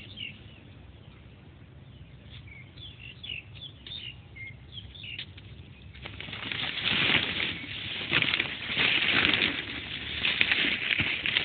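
Small birds chirp faintly in the background. About six seconds in, loud irregular rustling and crackling starts as black shade netting is pushed aside and handled by hand.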